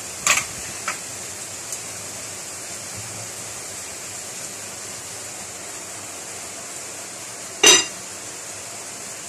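Minced garlic and onion sizzling steadily in hot oil in a wok. A couple of light clicks come near the start, and about three-quarters of the way through there is one louder, ringing clank of kitchenware.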